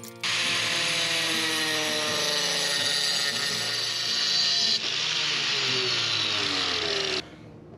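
Angle grinder with a masonry cutting blade slicing through a thin brick veneer, its whine sinking in pitch as the blade bites into the brick. It starts just after the opening, dips briefly about five seconds in, and stops a little before the end.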